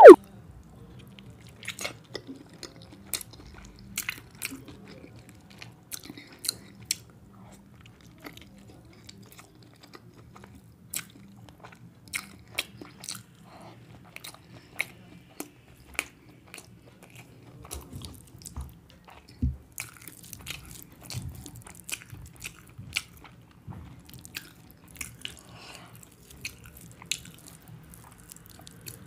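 Close-miked eating sounds of rice, curry and boiled egg eaten by hand: chewing and wet mouth smacks heard as short irregular clicks, a few a second. It opens with one sharp, loud click, the loudest sound in the stretch.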